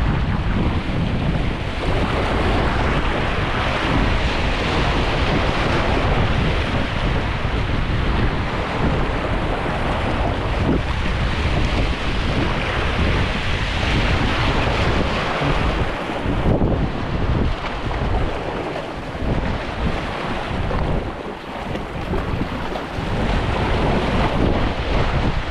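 Wind buffeting the microphone over a steady rush of sea surf, easing a little about two-thirds of the way through.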